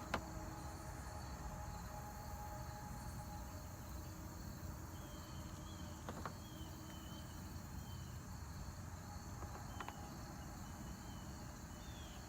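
Steady high-pitched chorus of insects, with a few light clicks or knocks and some faint chirps in the second half.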